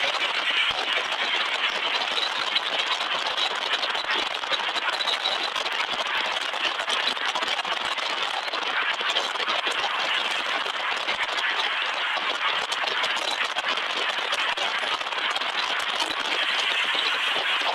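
Steady road noise of a car driving on a paved highway, a hiss of tyres and passing air with many small rattles and clicks throughout.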